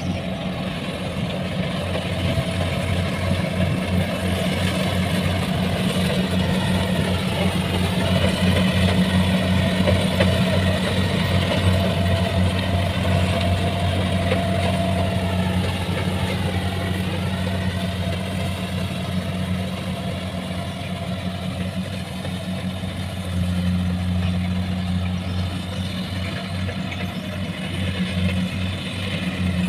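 Kubota combine harvester's diesel engine running steadily while cutting ripe rice: a low, pulsing drone with a higher whine over it that dips and recovers in pitch a couple of times.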